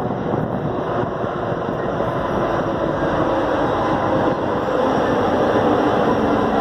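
BNSF freight train rolling past close by: a loud, steady noise of the train's wheels on the rails.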